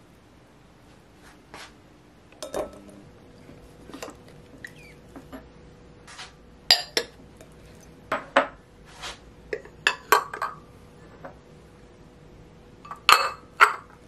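Ceramic bowls and a stainless steel mesh strainer clinking and knocking together as they are handled and set in place, with a ceramic bowl pressed down into the strainer onto yogurt in cheesecloth to squeeze out the whey. About a dozen separate knocks, the loudest near the middle and near the end.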